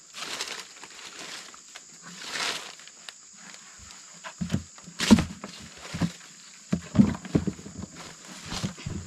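Dry banana leaves and stalks rustling as a bunch of bananas is cut, then a run of short, low, sharp-edged sounds through the second half, loudest twice.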